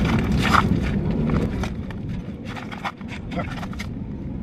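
Brief snatches of voices over a low, steady outdoor rumble that eases off after about a second and a half.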